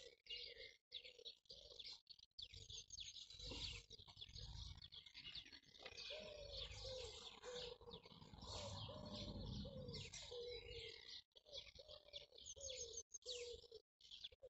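Songbirds chirping and twittering, many quick overlapping calls, with a lower wavering call repeating beneath them and a faint low rumble through the middle.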